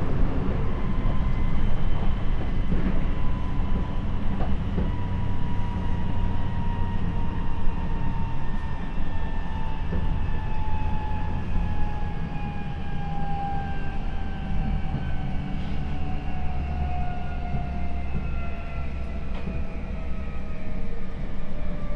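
Seibu 6000 series electric train's Mitsubishi SiC VVVF inverter and traction motors whining, the whine falling steadily in pitch as the train slows, over the rumble of wheels on rail with occasional rail-joint clicks.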